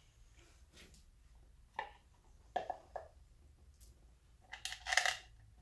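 A few separate clicks and light knocks from hand work on a stopped engine, the loudest a short clatter of parts or tools near the end.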